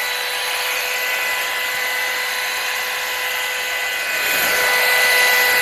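Hot air brush running: a steady motor whine over the rush of blown air, getting a little louder about four seconds in.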